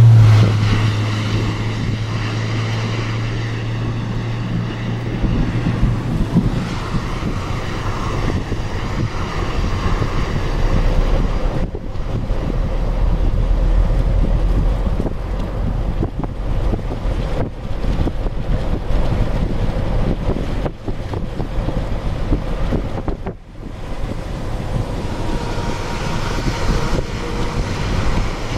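Strong wind rushing and buffeting across the microphone, loud and continuous with brief dips. A low steady hum sits under it for the first six seconds or so.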